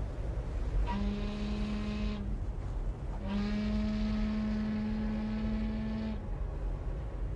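Ship's horn sounding two blasts, a short one and then a longer one of about three seconds, each a single steady low note. Under them runs a continuous low rumble.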